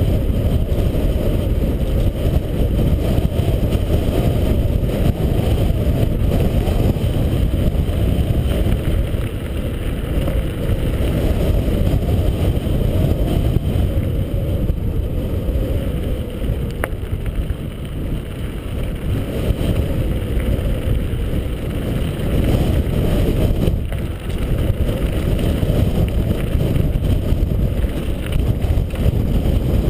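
Mountain bike tyres rolling over a gravel trail, with wind buffeting the GoPro HD camera's microphone, heard as a steady low, muffled rumble. A single sharp click about 17 seconds in.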